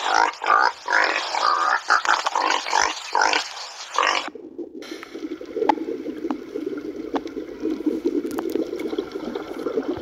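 Wild boars grunting in irregular bursts for about the first four seconds. Then it cuts to underwater ambience: a steady low rushing noise with scattered faint clicks.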